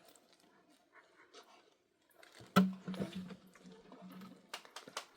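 An animal's call that starts suddenly about two and a half seconds in and holds one steady pitch for about a second and a half, followed by a few sharp clicks near the end.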